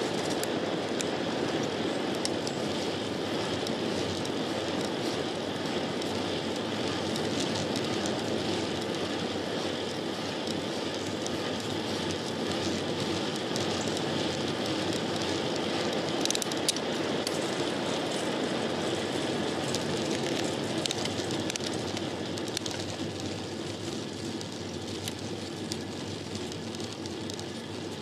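Road bicycle rolling along pavement: a steady rush of wind over the microphone and tyre noise on the road, with a few sharp clicks and ticks. It eases off a little in the last few seconds.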